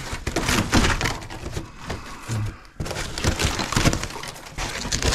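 Water-damaged wood-grain wall paneling being pried and ripped off a wall, cracking and splintering in a rapid run of snaps, knocks and crunches, with a short pause a little past halfway.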